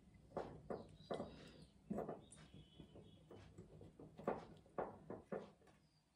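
Faint scattered knocks and light rustling as a glass jar holding a rooted bougainvillea cutting is handled, turned and shifted about on a glass tabletop.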